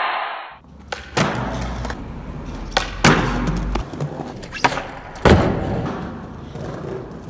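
Skateboard wheels rolling over rough stone paving, broken by sharp cracks and knocks of the board's tail popping and the board landing during ollie attempts; the loudest knock comes about five seconds in.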